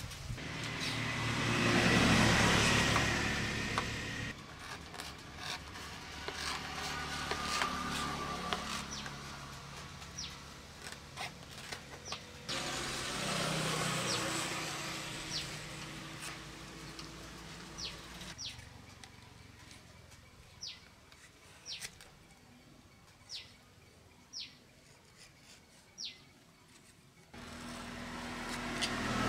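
Motor vehicles pass by, their noise swelling and fading three times. In between, short sharp ticks come about once a second as a knife cuts and splits thin strips of wood against a wooden block.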